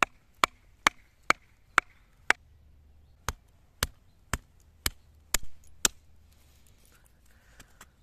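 Thin stick being split on a tree-stump chopping block, first with a knife driven by a wooden baton and then with a hatchet. About a dozen sharp wooden knocks come roughly two a second, with a short pause about two and a half seconds in. The knocks stop about six seconds in.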